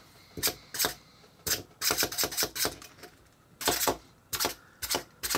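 Clockwork of a small plastic wind-up Rowlet toy clicking in short, uneven bursts of sharp ticks, with brief pauses between them.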